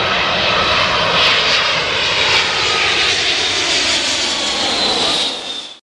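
Airbus A380 jet engines on landing approach: a loud, steady roar with a high whine that falls slightly in pitch. The sound cuts off abruptly near the end.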